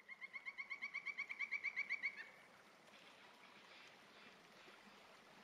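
An animal's rapid trilled call: about twenty evenly spaced pitched notes over two seconds, growing louder and then stopping abruptly, followed by faint outdoor ambience.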